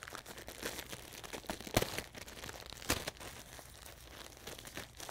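Clear plastic bag crinkling as it is handled and opened, with two sharp clicks about two and three seconds in.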